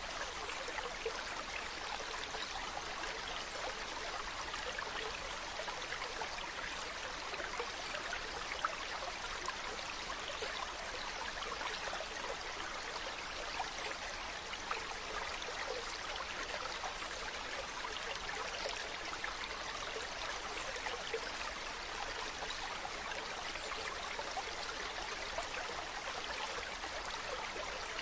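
Running water trickling and burbling steadily like a small stream, with tiny splashes flecked through the flow.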